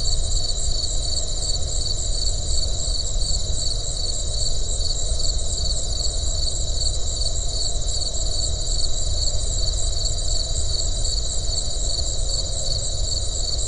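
Dawn field recording of open grassland: a steady, high-pitched chorus of trilling insects, with a constant low rumble underneath.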